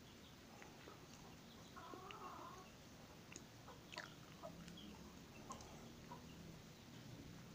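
Near silence: faint room tone, with one brief, faint animal call about two seconds in and a few soft clicks after it.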